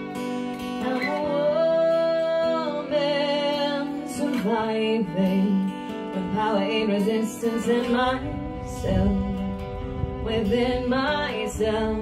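Live acoustic duet: a Fender acoustic guitar strummed with a violin playing a melody, and a woman's voice singing over them.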